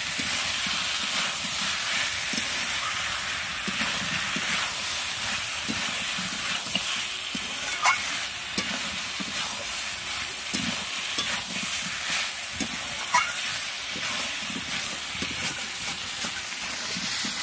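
Chicken and potato curry sizzling in a kadai as it is fried down in its masala, stirred and scraped with a metal spatula. There are a few sharp clinks of the spatula against the pan, the clearest about 8, 10 and 13 seconds in.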